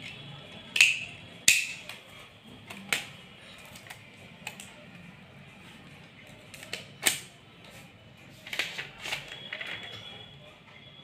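Hard plastic and cardboard clicks and taps from a smartphone's charger, box and handset being handled during unboxing. Two loud clicks come about a second and a second and a half in, with scattered smaller clicks and rustles after.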